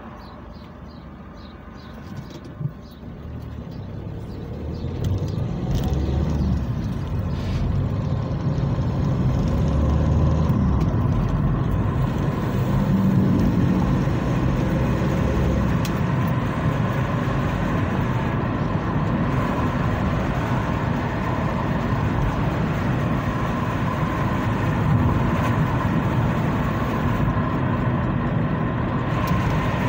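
A car pulling away from a standstill and driving on: engine and tyre noise rise over the first few seconds, then settle into a steady rumble of road noise heard from inside the cabin. A single knock sounds about two seconds in.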